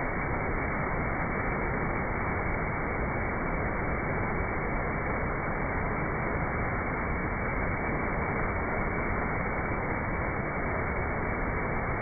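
A waterfall pouring and splashing down a rock chute, a steady rush of water with no breaks.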